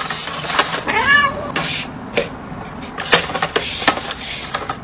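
A cat meows once, about a second in, a short call that rises and falls, among scattered sharp clicks.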